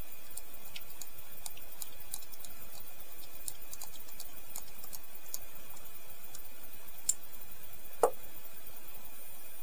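Small, faint clicks of a precision screwdriver bit turning the screws in the handle scale of an Ontario Rat-1 folding knife, followed by a single louder knock about eight seconds in as the screwdriver is set down on the cloth-covered table. A steady background hiss runs underneath.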